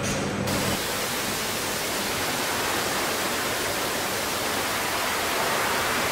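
Dense water spray from the jets of a car water-leak test booth, hissing steadily as it drenches the body of a finished car. It cuts in about half a second in, over a brief low factory hum.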